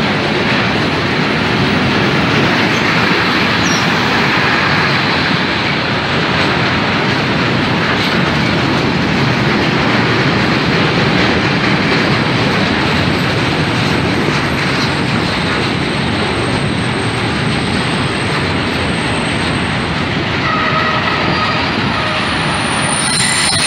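Freight train of open box wagons rolling past close by at steady speed: a continuous loud rumble and rattle of steel wheels on the rails. Near the end, thin high squealing tones rise out of the wheel noise.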